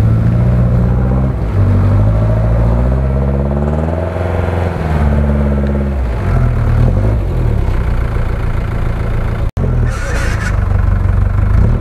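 UAZ-469 engine revving under load as the four-wheel-drive pulls through deep mud. The revs climb from about two seconds in, peak, and fall back a few seconds later, then hold steady.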